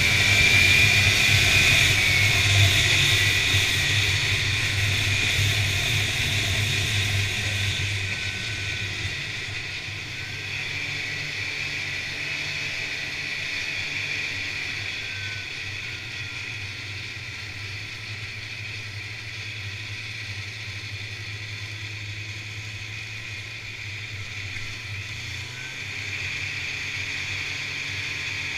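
Snowmobile engine running while under way, louder for the first several seconds and then easing off to a steady cruise about eight seconds in.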